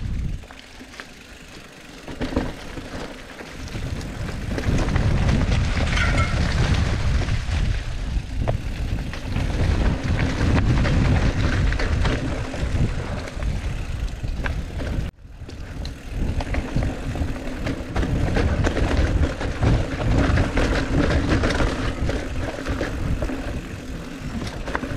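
Mountain bike riding down a dirt singletrack: tyres on dirt and rock, with the bike's chain and frame rattling and clattering, and wind rushing over the camera microphone. It gets louder about four seconds in as speed picks up, and breaks off for a moment about fifteen seconds in.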